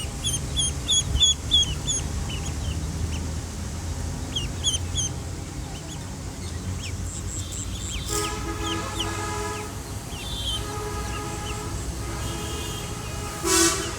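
Baby chicks peeping: quick high chirps that fall in pitch, in a run at the start, a few more after about four and a half seconds, and scattered ones in the second half. Over a low steady rumble, long steady horn-like tones sound several times in the second half.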